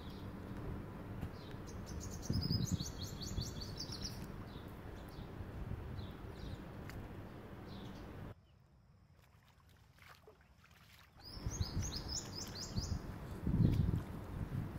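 A songbird singing twice, each time a fast run of falling high notes, over a steady low rumble. The sound drops almost to nothing for about three seconds in the middle.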